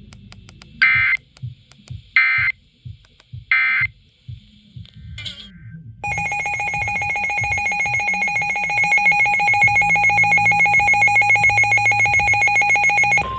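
Emergency Alert System broadcast tones: three short bursts of digital data, the end-of-message signal, then about six seconds in a steady, evenly pulsing electronic attention tone that holds for about seven seconds and cuts off sharply.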